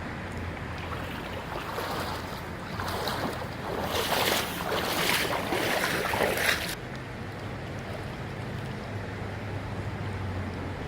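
Steady outdoor noise of wind and running creek water. In the middle comes a louder, rough rushing stretch of a few seconds that cuts off suddenly.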